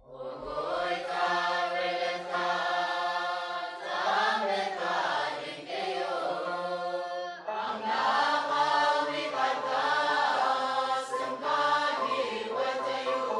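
Choir singing a Tigrinya Orthodox Lent hymn (mezmur), two sung lines with a short breath between them about halfway through, over low held notes.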